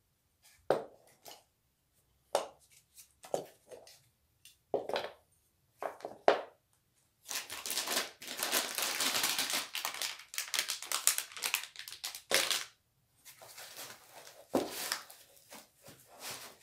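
Plastic packaging bags crinkling and rustling as 3D printer kit parts are handled and laid out, with short separate crackles and light knocks at first and a long stretch of dense crinkling from about seven to twelve seconds in.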